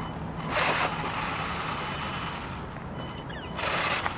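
A 3D-printed electric RC car driving on asphalt: a steady rush of tyres on the pavement with a high motor whine, surging louder twice as it passes close, about half a second in and near the end.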